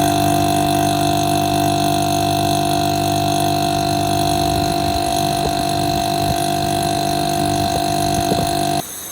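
Steady electrical hum from a window air conditioner's motor, a low drone of several constant tones that cuts off suddenly near the end.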